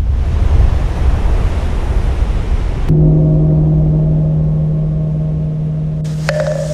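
A low rumbling roar, then about three seconds in a large temple bell is struck once and rings on with a deep, steady hum. Near the end, sharp wooden knocks begin over the ringing.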